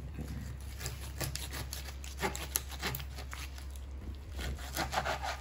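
Raw chicken being cut up on a board: irregular knocks, scrapes and rubbing of knife and meat, loudest about two and a half seconds in and again near the end.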